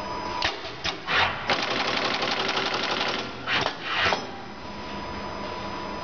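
TEN-HIGH TH-P20 flat ribbon cable crimping machine cycling. Several short, sharp clacks are followed by about two seconds of rapid, even mechanical clatter, then two more clacks, all over the machine's steady hum with a thin tone.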